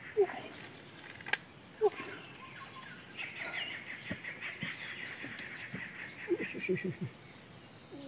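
Insects buzzing and chirping: a steady high drone with a short chirp repeating at an even pace, a few times a second. A few brief sharp sounds cut through, including a click just over a second in.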